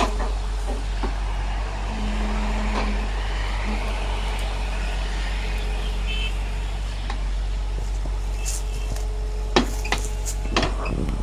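Excavator's diesel engine and hydraulics running steadily as the hydraulic tree shear attachment is moved into a tree, with a few sharp knocks near the end.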